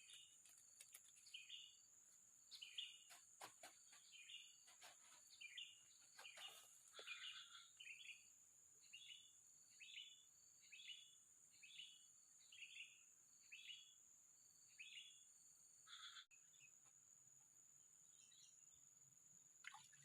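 Faint ambience with a bird giving a long run of short, evenly spaced chirps, about one and a half a second, that stops about four seconds before the end, over a steady thin high-pitched whine.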